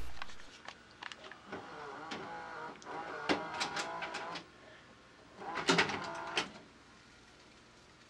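A VCR's tape mechanism whirring and clicking in two short bursts as the tape is stopped and handled in the machine.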